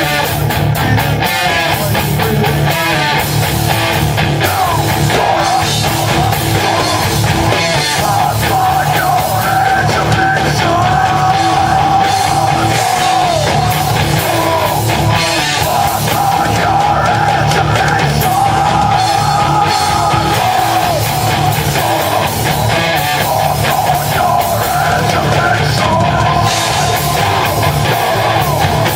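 Live rock band playing loud and heavy, with electric guitars and drums, and a held, wavering melody line riding over them.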